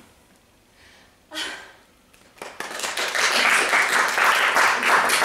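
Audience applause in a small theatre, breaking out about halfway through as a dense patter of many hands clapping, after a short quiet stretch with one brief sound.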